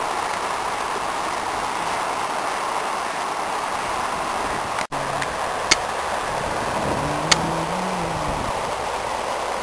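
Steady rush of a swollen, flooding river. About halfway through the sound cuts briefly and resumes, with two sharp clicks and a faint low engine-like hum over the water.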